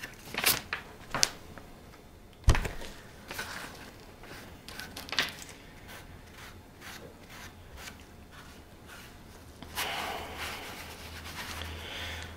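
Cloth rubbing leather balm into a small leather strap: soft scrubbing with a few scattered sharp taps, the loudest about two and a half seconds in, and denser, steadier rubbing near the end.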